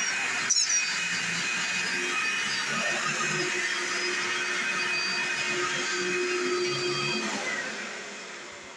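Small stick vacuum cleaner running steadily with an even pitched whine while picking up sprinkled oats, with a brief click about half a second in. About seven seconds in it is switched off and the motor winds down, the sound fading away.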